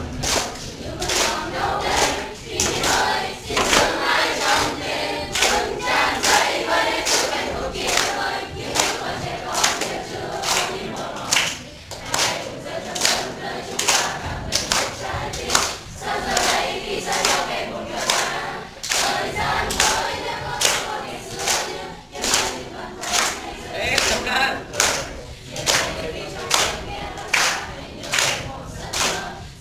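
A classroom of teenage students singing a song together in unison, clapping their hands to a steady beat.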